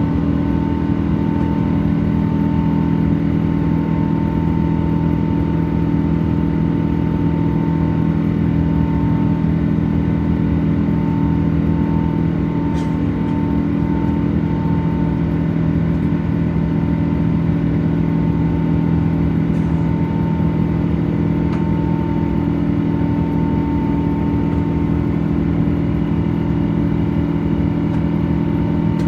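Steady jet engine and airflow drone inside a Boeing 777-200's cabin, a low hum with a faint whining tone near 1 kHz that fades in and out, and a couple of faint clicks.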